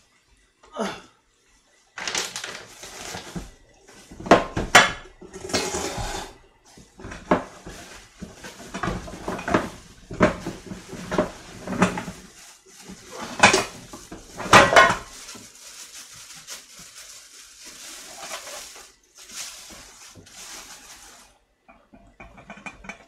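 Metal pots and pans clattering and knocking, with utensils clinking, as cookware is rummaged through and handled. The irregular strikes start about two seconds in and die away near the end.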